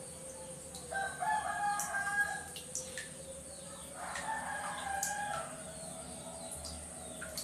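A rooster crowing twice, each crow lasting about one and a half seconds, over a steady faint high-pitched hum.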